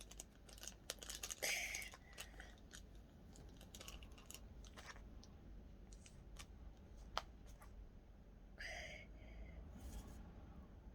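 Hands kneading and mixing slime with small add-ins: soft, irregular sticky clicks and crackles, busiest in the first couple of seconds.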